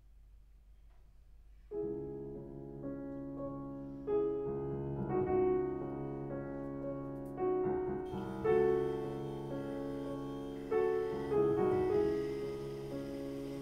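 Background solo piano music in a slow classical style, entering about two seconds in after a near-quiet start.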